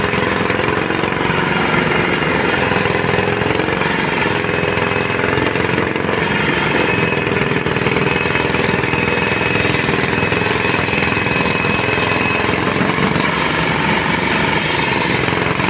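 Heavy construction machinery on runway repair work, running steadily: an engine hum with a rapid, continuous pulsing beneath it.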